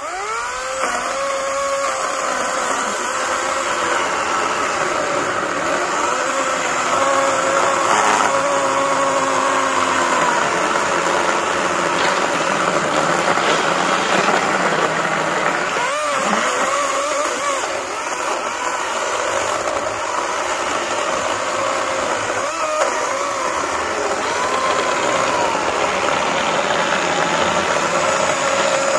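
Greenworks 80V battery electric chainsaw starting up suddenly and cutting through sawmill slabs with a steady motor whine. The pitch dips briefly a couple of times as the chain loads up in the wood.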